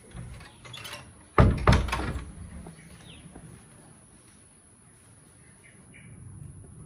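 Wooden panel door knocking shut: two heavy knocks in quick succession about a second and a half in, dying away quickly.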